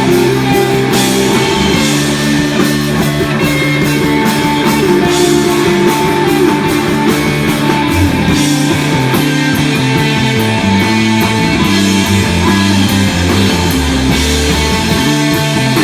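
Live instrumental desert rock from a band: sustained electric guitar lines over bass and a drum kit with steady cymbal strokes.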